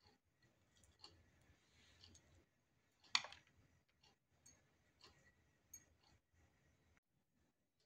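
Faint scattered clicks and light taps, one sharper click about three seconds in, from hands picking up and sprinkling chopped dry fruits onto glasses of lassi. Almost silent near the end.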